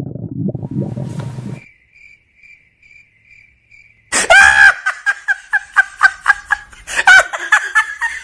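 Stomach-growl sound effect, a low gurgling rumble that cuts off about a second and a half in. Then a couple of seconds of faint, evenly spaced cricket chirps. From about four seconds in comes a loud run of quick pitched pulses, about five a second.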